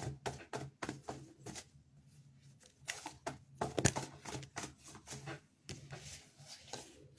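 A deck of reading cards being shuffled and pulled by hand: irregular crisp snaps and taps of the cards, coming thick about the middle.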